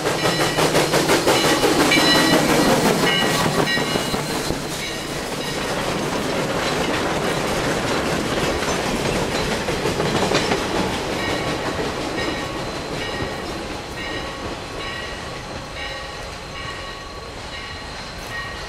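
Sierra Railway No. 3 steam locomotive and its freight cars running by, the wheels clattering over the rail joints. The sound is loudest in the first few seconds and fades steadily toward the end.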